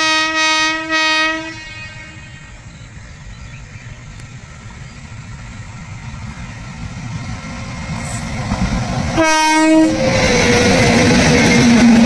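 Indian Railways train horn sounds a blast of about a second and a half. The train's rumble then grows louder as it approaches, the horn sounds again briefly about nine seconds in, and from about ten seconds the train passes close by with loud running noise of wheels on the rails.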